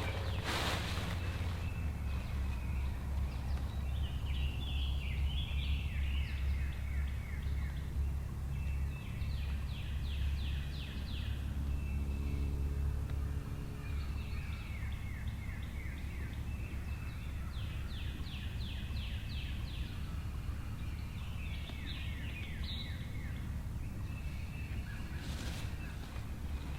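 Birds singing in the woods: several bursts of rapid, high trills, each a second or two long, over a steady low rumble of wind on the microphone.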